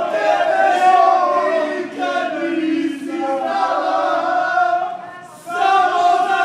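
A group of young men singing and chanting together in loud unison, holding long notes, with a brief drop about five seconds in before they start up again.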